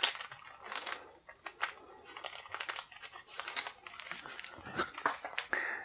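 Thin clear plastic bag crinkling and rustling in the hands as it is opened and a stiff card mat is drawn out of it, with scattered small clicks.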